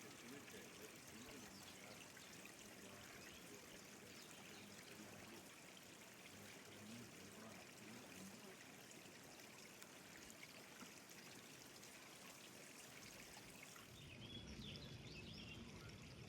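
Faint, steady rush of running water from a mountain stream. It grows a little fuller and louder about fourteen seconds in.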